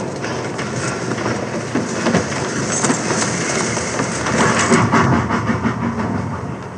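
Railway freight wagons on a film soundtrack: a dense, steady clatter and rumble of the train.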